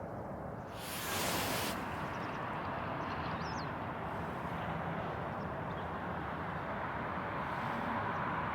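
Steady rushing of a river flowing over its stony bed, with a brief loud hiss about a second in and a faint bird chirp a few seconds later.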